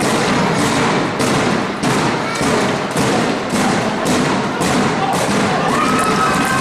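Spectators in a sports hall keeping up a steady beat over crowd noise, one echoing thump about every 0.6 seconds. A few shouts rise near the end.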